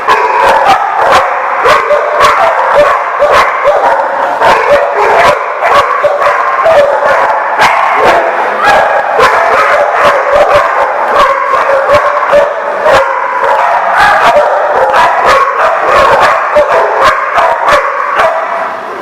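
Several dogs barking and yipping at once, their barks overlapping without a break.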